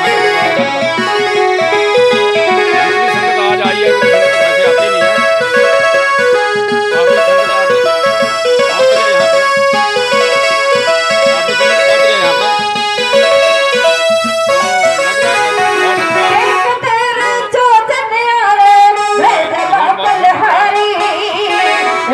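Devotional music led by a keyboard instrument playing a stepping melody of held notes; about three quarters of the way in, a wavering line, possibly a voice, takes over and the texture thickens.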